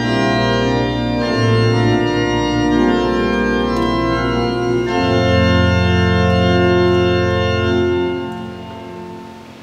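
Church organ playing sustained full chords over low bass notes that shift twice. The final chord is released about eight seconds in and dies away in the church's reverberation.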